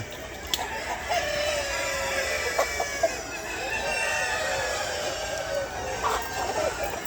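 A flock of chickens clucking and calling, with a rooster crowing in a long, slowly falling call starting about a second in.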